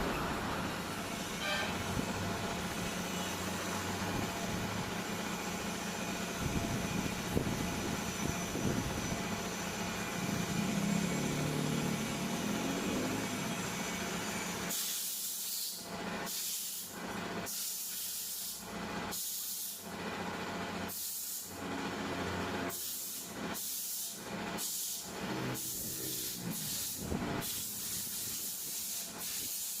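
Compressed air hissing in about a dozen short bursts, starting about halfway through. Before that a steady mechanical hum runs.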